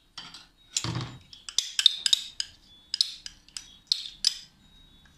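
A metal spoon clinking against a glass in a string of irregular sharp clinks while stirring creamer into hot water, with one heavier knock about a second in.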